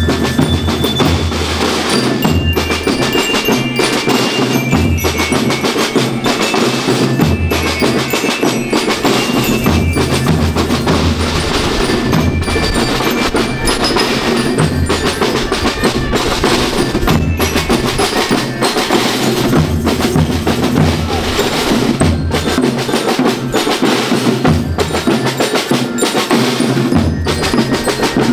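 School rhythm band playing without a break: drums and bass drums keep a steady beat under a melody struck on glockenspiel-like metal bars.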